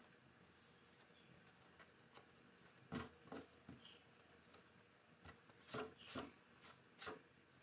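A few short, sharp knocks and taps, sparse and irregular, over near silence.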